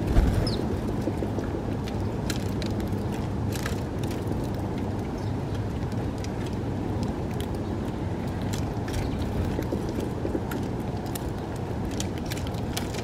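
House sparrows feeding at a hanging seed feeder: many short, sharp clicks of pecking scattered through, with a louder thump just after the start as a bird lands. Under it runs a steady low rumble of distant traffic.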